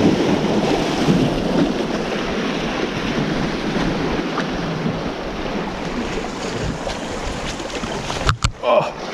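Sea waves washing over shoreline rocks as the tide floods in, with wind buffeting the microphone. A couple of sharp knocks near the end.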